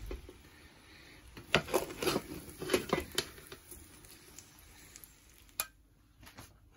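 A utensil scraping and clinking against a cooking pot as cooked biryani rice is dished out into a tray: a run of short scrapes and knocks, then a single louder knock near the end.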